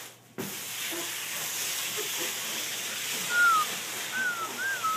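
Steady hiss, with three or four short whistled notes in the second half, each a brief sliding tone, the first falling and the later ones rising then falling.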